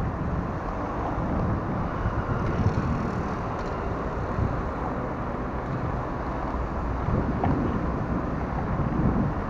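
Wind noise on the microphone of a moving camera, over the steady sound of city traffic on the road alongside.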